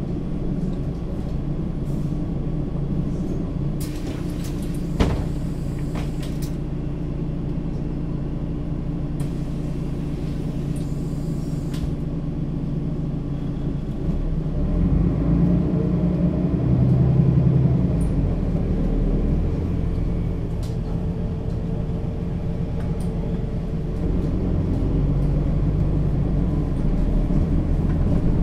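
Mercedes-Benz Citaro O 530 G articulated bus with its diesel engine running steadily. There is a sharp click about five seconds in, and short hissing around then and again near twelve seconds. From about fourteen seconds the engine grows louder and its note changes, and it steps up again near twenty-four seconds.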